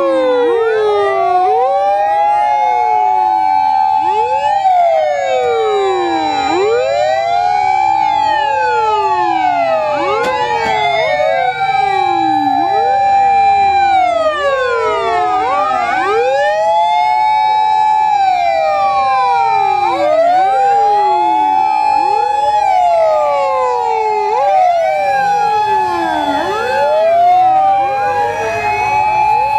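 Sirens of several fire engines sounding together, out of step: each wail rises to a held high tone and then falls away, over and over, so that rising and falling pitches overlap. A low vehicle rumble runs underneath.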